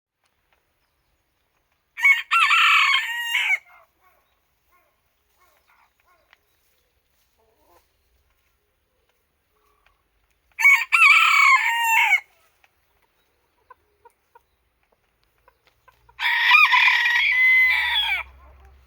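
Japanese bantam (chabo) rooster crowing three times, each crow a high, bending call of about a second and a half to two seconds, with long pauses between them.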